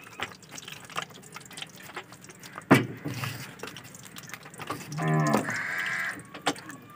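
Hands pressing and turning a chicken leg in dry gram flour in a steel plate, with small crackles and scrapes and one sharp knock a little under three seconds in. About five seconds in, a pitched call lasting about a second, the loudest sound after the knock.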